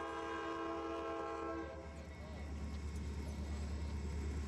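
Diesel locomotive air horn sounding a held chord that cuts off about two seconds in, over a low steady rumble.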